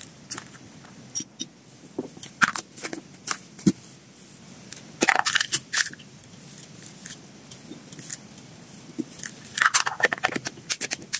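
Dry hamster treats (carrot-cheese pieces and vegetable sticks) clicking and clattering against a spoon and plastic containers as they are handled. Scattered light clicks, with two busier stretches of rattling and scraping: one about five seconds in and one near the end, as a plastic lid is fitted on.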